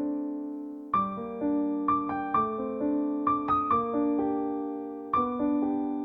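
Background piano music: a gentle melody of single notes over held chords, with a new phrase entering about a second in.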